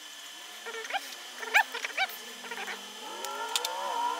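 A cat calling: a few short chirping calls, then from about three seconds in a long meow that rises and then falls in pitch. A few light clicks sound over the meow.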